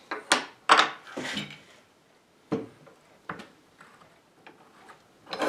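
Small wooden clamping blocks and a long steel pipe clamp being set down and positioned on an oak tabletop: a string of separate knocks and clunks of wood and metal on wood, the loudest near the end.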